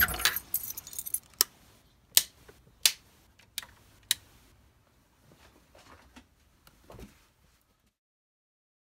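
Handling noise: a quick clatter of sharp clicks and clinks, then five single sharp clicks about half a second to a second apart, fading to faint rustling that stops about seven and a half seconds in.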